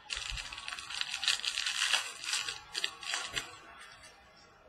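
Foil trading-card pack being torn open and crinkled by hand, a crackling rustle that lasts about three seconds and then dies away.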